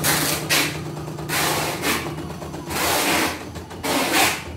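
CNY E900 computerized embroidery machine stitching, its rapid needle strokes coming in about four short bursts, each about half a second long, over a faint steady motor hum.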